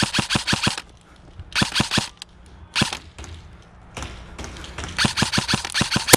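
Airsoft guns firing rapid full-auto bursts of sharp, snappy shots, about ten a second. There is a burst at the start, a short burst about two seconds in, a lone shot just before three seconds, and a longer burst from about five seconds in.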